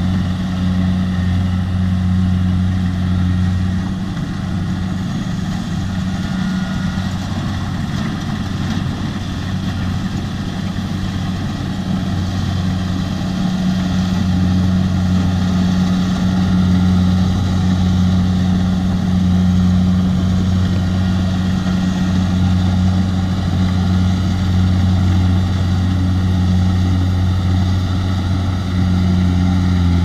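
Kubota DC70 rice combine harvester's diesel engine running steadily at working speed as it cuts and threshes ripe rice, a constant low drone.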